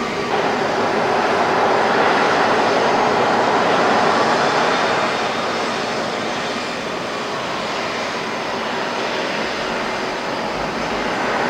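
Boeing 737-500's turbofan engines running at taxi power as the jet rolls past, a steady rushing whine. It grows louder just after the start and eases a little after about five seconds.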